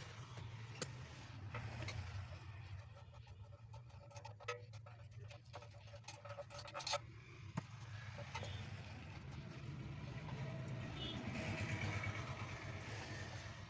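Scattered metal clicks and taps as hand tools work on the bearing and shaft nut of a 14-inch cut-off saw's armature housing, over a steady low hum.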